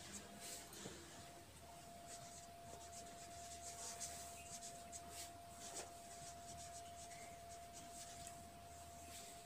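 A pen scratching on paper in short, irregular strokes as words are handwritten, faint, with a thin steady tone underneath.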